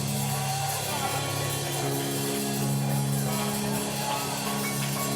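Slow church worship music: sustained chords held steadily, with short wavering sung phrases drifting over them.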